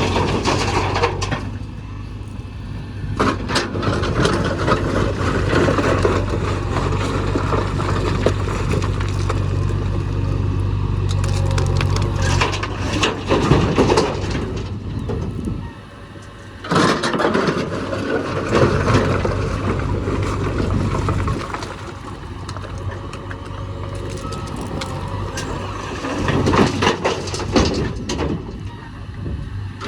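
Diesel engine of a JCB backhoe loader running, with heavy scraping and crashing of material as it loads a dumper truck. The engine's steady hum drops away about twelve seconds in, and there is a short lull a few seconds later.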